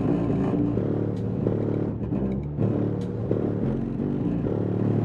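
A 12-inch Skar EVL car-audio subwoofer playing bass-heavy music in free air, with no enclosure, driven hard at about 1000 watts. The notes change every half second or so over a steady deep bass.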